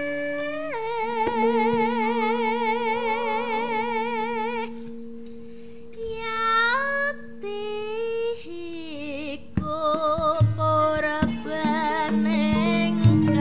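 Javanese gamelan (karawitan) music: a female sindhen sings long, wavering held notes and sliding phrases over sustained instrument tones. From about ten seconds in, sharp struck strokes and low notes from the ensemble join in.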